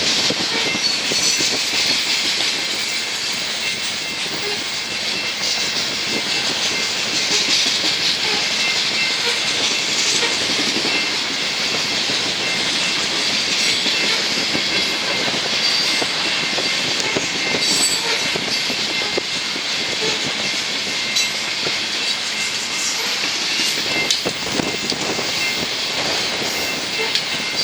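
BNSF coal train's cars rolling past at speed, the wheels clicking steadily over the rail joints, with a thin high squeal from the wheels on the rails.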